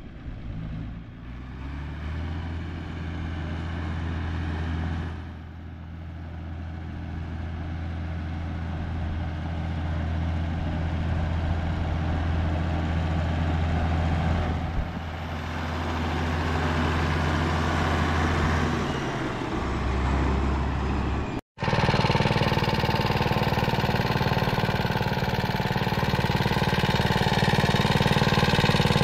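A Farmall tractor's engine running steadily as it drives by, its note dropping about two-thirds of the way through. Then, after a break, a small garden tractor's engine running, louder and close by.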